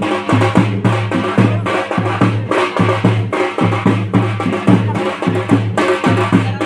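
Drum-led music: a fast, steady beat of several strokes a second over a held low tone.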